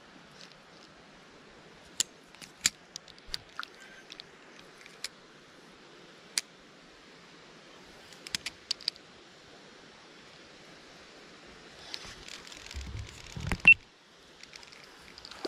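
Spinning rod and reel being handled during a cast and retrieve: scattered sharp clicks and ticks over a faint steady hiss of flowing water, then louder rustling with one sharp knock near the end.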